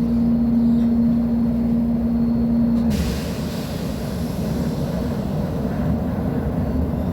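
Volvo B10M bus's diesel engine running, with a steady high whine that stops about three seconds in, when a sudden hiss begins over the continuing rumble.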